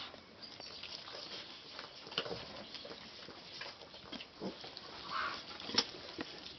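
Newborn piglets suckling at a sow: scattered small grunts and wet sucking clicks, with a short squeak about five seconds in.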